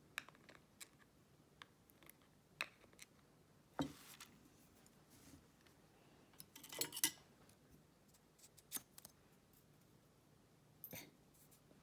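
Small metal lock parts and tools clicking and tapping at irregular moments on a work surface, with a short cluster of clicks about seven seconds in. The parts come from a disassembled padlock core being readied for its driver pins to come out.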